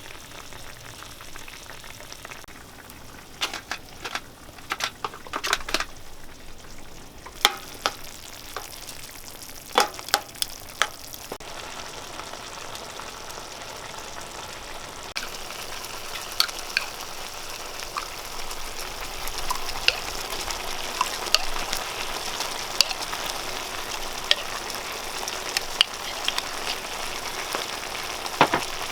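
Food sizzling in a pan while a utensil stirs and scrapes it, with sharp clicks and knocks of the utensil against the pan. In the second half the sizzling turns into a steadier, louder hiss.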